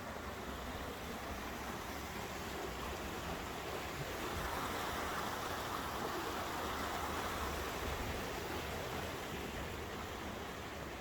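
A stream rushing steadily, swelling louder for a few seconds in the middle and then easing back.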